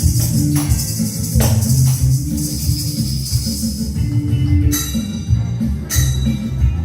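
Music from a children's percussion ensemble: tambourines and shakers jingling in rhythm over a tune with a strong bass line. The jingling strokes stand out more sharply in the last couple of seconds.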